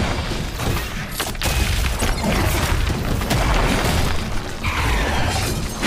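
Dramatic creature-fight sound effects for a giant sandworm demon. A heavy low rumble runs throughout, broken by sharp crashes and a spray of rocks and debris.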